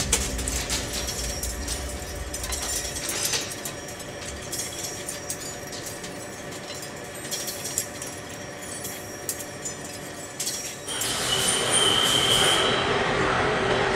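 Metal being cut on a machine tool, with a patter of small ticks over a steady machine hum. About eleven seconds in it switches to a louder, denser cutting noise, with a brief high steady tone.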